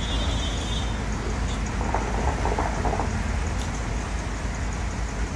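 Hookah (hukka) bubbling as the smoker draws on it, a steady low gurgling rumble from the water base.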